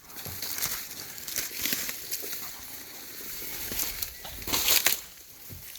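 Footsteps and the rustle of grass and leaves brushing as someone walks through weedy vegetation, with a louder rustle about four and a half seconds in.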